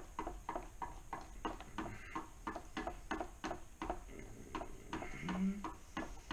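Ice-fishing tip-up spool clicking about three times a second as line is wound onto it by hand. A brief low hum comes about five seconds in.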